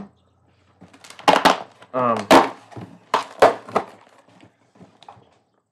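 Handling noise: a string of sharp knocks and thumps as things are set down on a hard surface and a cardboard box is picked up. A brief murmur of a man's voice comes about two seconds in.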